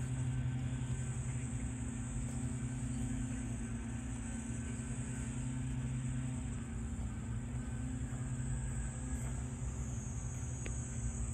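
A steady high-pitched buzz of a cicada chorus in summer, over a low, steady hum.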